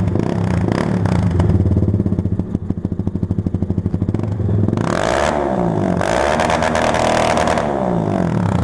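Yamaha Fazer 250 single-cylinder engine running through a Jeskap GP Carbon aftermarket muffler with its dB killer removed. It idles for about four seconds, then is revved up and down a couple of times from about five seconds in.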